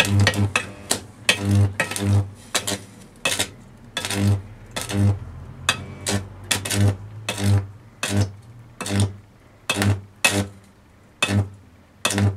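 Electric arc inside a clothes iron's heating element on 240-volt mains, its thermostat bypassed, buzzing and crackling in sharp, irregular bursts about once or twice a second, each with a low mains buzz.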